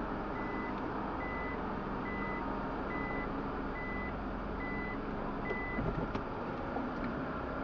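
Mechanical parking-tower bay giving a steady string of short electronic warning beeps, a little more than one a second, as its sliding entry door opens. The beeping stops near six seconds in, just as a few clunks come from the opening door, over a steady low hum.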